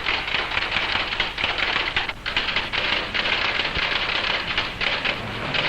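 Electric typewriter being typed on rapidly: a fast, dense run of key strikes with a short break about two seconds in.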